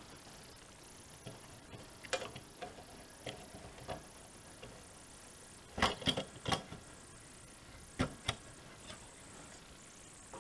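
Scattered clicks and light knocks from a car radio's circuit board and metal chassis being handled, with a cluster of sharper clicks about six seconds in and two more about eight seconds in.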